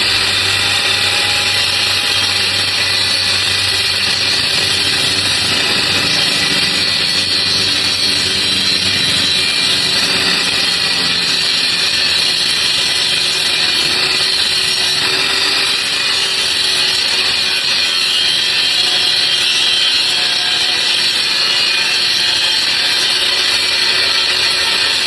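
Handheld angle grinder grinding down a stick weld bead on steel, running steadily under load with a continuous harsh grinding noise.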